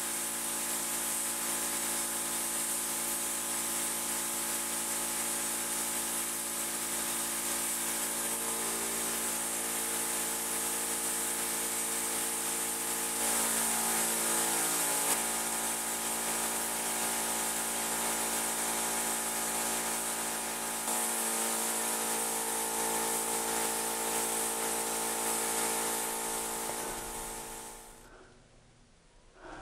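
Gravity-feed paint spray gun hissing steadily as it sprays, over a steady hum of several tones that shifts slightly in pitch partway through. The sound stops suddenly near the end.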